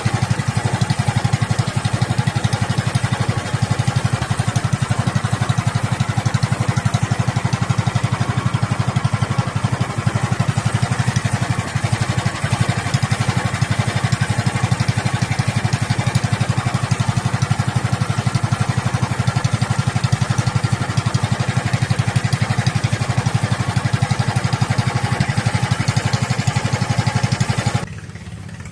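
Small engine running steadily at an even speed, then dropping in level suddenly near the end.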